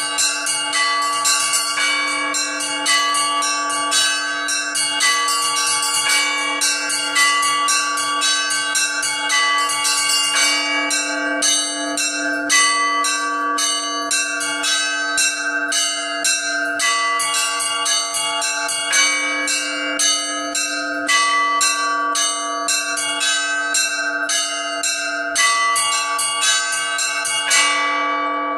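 Orthodox church bells struck by an automatic electronic bell-ringing system, playing the slow weekday peal: small bells chime in quick succession over the steady hum of a larger bell. Near the end the strikes stop and the bells ring on, fading.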